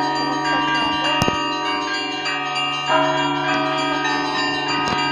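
Orthodox monastery church bells ringing: several bells of different pitches struck again and again, their tones overlapping and ringing on, over a steady low hum from a larger bell.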